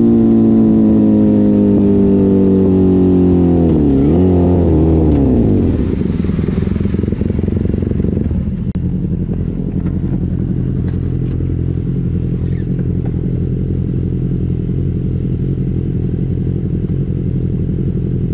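Motorcycle engine winding down in pitch as the bike slows, with a brief dip and rise about four seconds in, then settling to a steady idle.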